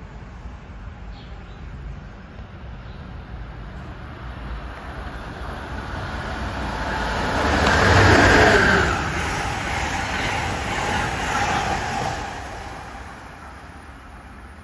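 A train passing at speed. It grows louder, peaks about eight seconds in with a falling pitch, and fades away over the following few seconds.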